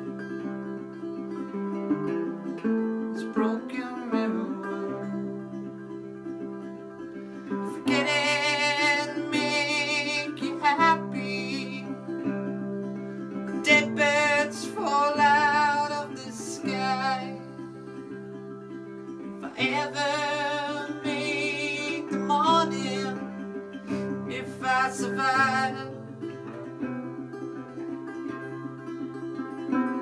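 Resonator guitar playing an instrumental break in a slow blues song: steady picked bass notes, with a higher lead line of wavering notes coming in about eight seconds in and returning several times.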